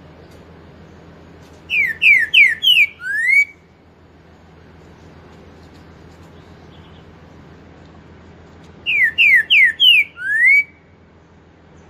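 Green-winged saltator (trinca-ferro) singing two phrases. Each phrase is four quick, loud, falling whistled notes ending in one rising note, the 'four-note boi' song.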